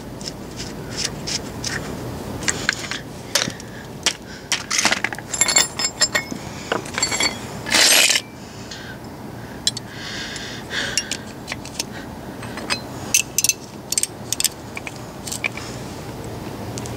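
Metal hand tools clinking, clattering and scraping as they are gathered up and put away, in many irregular separate knocks, with one louder, longer clatter about eight seconds in.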